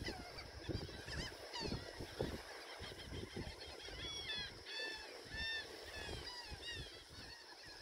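Birds calling over and over: short, arched, honking calls, several a second, loudest around the middle, over irregular low thumps and rumbles.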